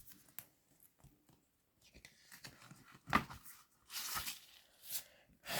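Faint handling of a vinyl LP and its paper and card sleeves: scattered rustling and sliding, with a single sharp tap about three seconds in.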